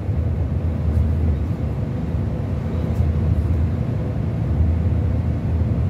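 Mercedes-Benz O-500RSD double-decker coach's diesel engine running steadily: a low drone with a faint steady whine above it.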